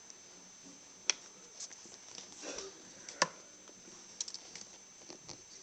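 Faint handling noise from a new football cleat being turned over in the hand: a few sharp clicks and small ticks, the loudest about a second in and about three seconds in, and a short rustle in between.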